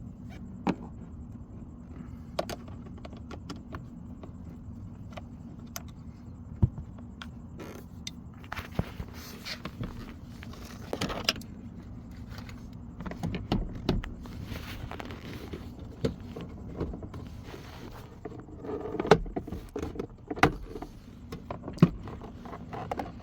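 Hands at work on the cabin air filter job inside a car: scattered clicks and knocks with several stretches of rustling and scraping, over a steady low hum.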